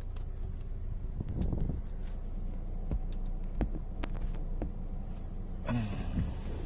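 A steady low mechanical hum, like a running engine, with scattered knocks and clicks over it.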